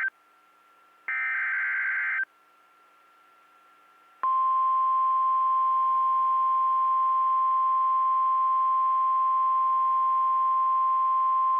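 Emergency Alert System SAME header data bursts: a harsh warbling screech that ends just after the start, and another of about a second. About four seconds in, the steady single-pitch 1050 Hz NOAA Weather Radio warning alarm tone begins and holds, announcing a severe thunderstorm warning.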